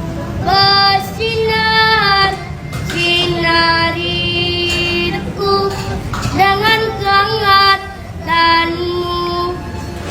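A child singing a melody in long held notes, phrase after phrase with short breaks between them.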